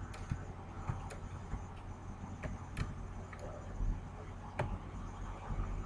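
A steady low hum with a few sharp, scattered clicks, about one every second or two.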